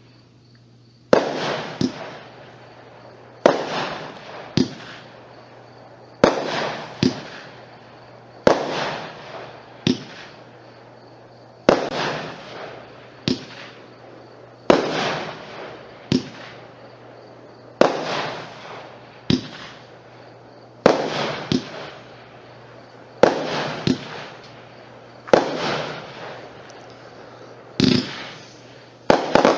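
A 20-shot 500-gram consumer fireworks cake firing shot after shot. A sharp bang comes about every two seconds, each one fading away, with smaller pops between some of them.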